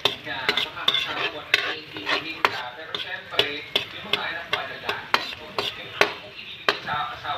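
Metal spatula scraping and clanking against a stainless steel wok, about two sharp strikes a second, while stirring chopped garlic and onion that sizzle lightly in oil.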